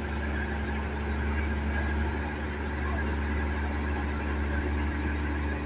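Combine harvester's diesel engine idling steadily: a low, even hum with steady overtones and no change in speed.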